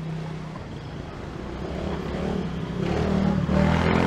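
A motor vehicle's engine running close by, getting louder toward the end as it draws near.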